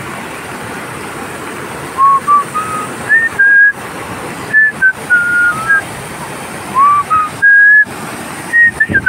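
A person whistling a tune in short held notes, starting about two seconds in, louder than the steady rush of muddy floodwater pouring down the slope beneath it.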